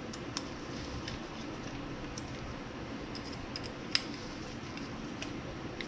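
Light, scattered metallic clicks and taps of small parts and hand tools being handled on a workbench, with one sharper click about four seconds in, over a steady low shop hum.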